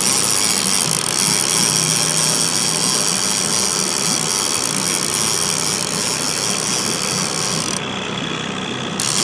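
Boat motor running steadily at trolling speed, a low even hum, with a steady high-pitched whine over it that drops out briefly near the end.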